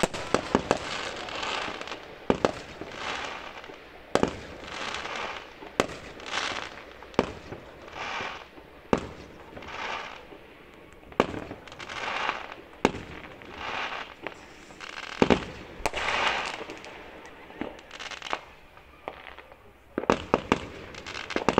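Aerial fireworks going off: sharp bangs, each followed by a second or so of crackling from the bursting shells, repeating every one to two seconds. A quick run of several bangs comes near the end.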